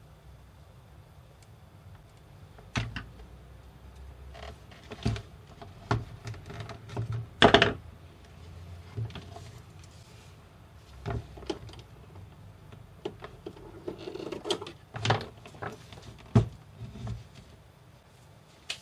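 Handling noise from a trim router with a plastic mesh screen being fitted round its base: irregular rustles, clicks and knocks while the motor stays off. A louder scraping rustle comes about halfway through, and a few sharp knocks come later.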